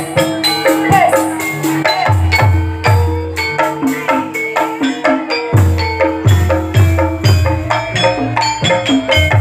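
Live Banyumas gambang suling ensemble playing: the wooden gambang xylophone plays a running melody over a steady beat of deep kendang drum strokes.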